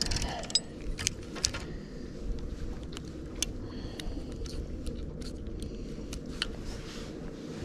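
Fishing rod, reel and tackle being handled on a bass boat's deck: scattered small clicks, taps and rattles over a steady low rumble.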